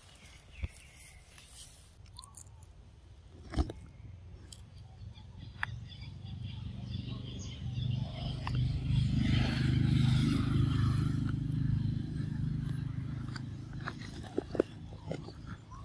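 A pig-tailed macaque biting and chewing at a snack held to its mouth, with scattered small clicks and crunches. A low rumble swells and fades in the middle.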